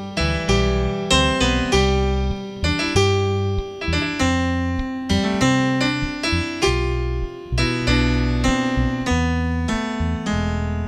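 Piano music: chords struck one after another over held bass notes, each fading after it is played.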